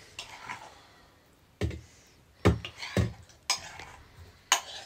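A metal serving spoon clinking against a stainless steel bowl and plates as curry is dished out: about five sharp clinks and knocks, irregularly spaced.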